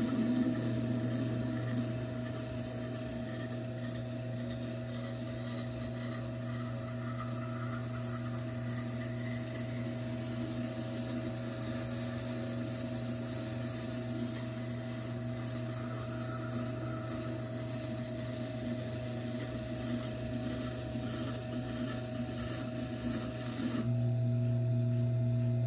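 Tormek T4 wet grinder running with a steady motor hum while a steel hunting-knife blade is ground on its grindstone, graded coarse to around 100 grit, making a continuous grinding noise. About 24 seconds in the blade comes off the stone and only the motor hum remains.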